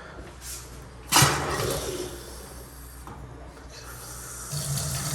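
A sharp knock about a second in, then, near the end, a sink faucet is turned on and water starts running steadily, showing the newly connected plumbing works.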